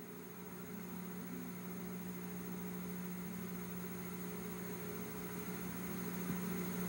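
Steady low electrical hum over a faint hiss, with no speech, growing slightly louder toward the end.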